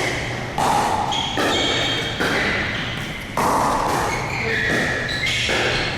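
Pickleball paddles striking a plastic pickleball in a rally: about five sharp pops at uneven intervals, with a busy background of voices.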